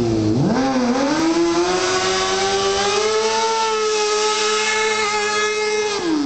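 Kawasaki 636 streetfighter's inline-four engine revved hard during a burnout, with the rear tyre spinning and smoking. The revs dip briefly near the start, climb to a high, nearly steady pitch, then drop away sharply at the end.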